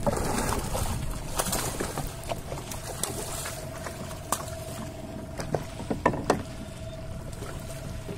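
Water splashing and sloshing beside a small fishing boat's hull as a hooked tuna thrashes at the surface while it is hauled in on the line. Sharp splashes and knocks come now and then, the strongest about two thirds of the way through, over a faint steady hum.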